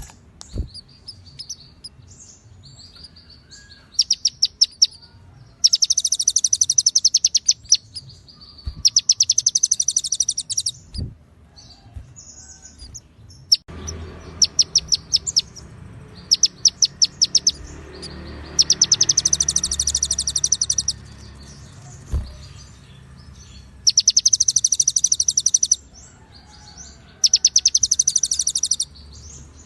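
Konin songbird singing a song filled with cililin and ciblek phrases, heard as a birdsong tutor recording. It sings in rapid, high chattering trills of one to two seconds each, separated by short pauses.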